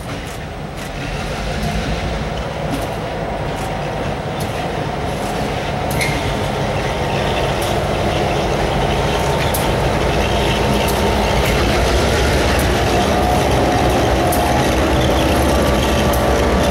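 Diesel-electric freight locomotives of the Housatonic Railroad approaching and passing at low speed, their engines growing steadily louder as they draw close, with a few sharp clicks from the train along the way.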